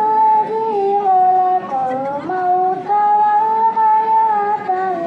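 A female voice reciting the Quran in Arabic in a melodic, sung style, holding long notes that waver and turn in pitch.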